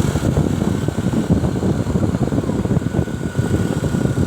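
Steady low rumble of road traffic, with a faint thin steady tone above it.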